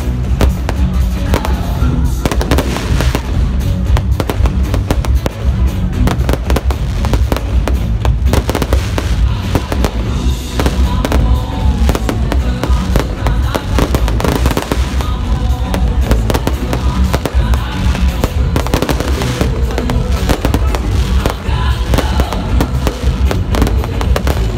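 Fireworks display: a continuous, rapid barrage of bangs and crackling from shells bursting overhead, with music playing underneath.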